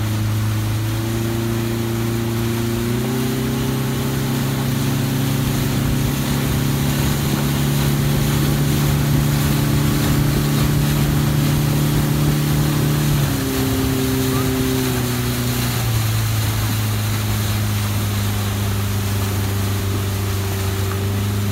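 Speedboat engine running under way. Its pitch rises as it speeds up about three seconds in, holds steady, then falls back to a lower speed after about thirteen seconds, over a steady rushing noise.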